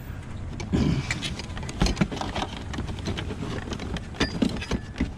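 Scrap metal and wire being handled and loaded, giving a series of irregular knocks and clanks, over the steady low rumble of a vehicle engine running.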